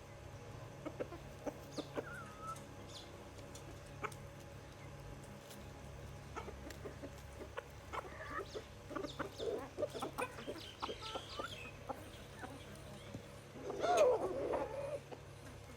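Chickens clucking, the calls growing busier about halfway through, with one louder call near the end.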